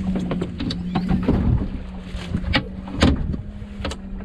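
Steady low hum of a Rhodan bow-mounted trolling motor working to hold the boat on position, with a few sharp knocks from handling at the fish box, the loudest about three seconds in.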